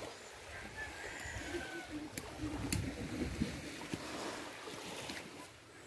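Faint seaside ambience: a low wind rumble on the microphone and gentle water at the shoreline, with a couple of small clicks about two and a half seconds in.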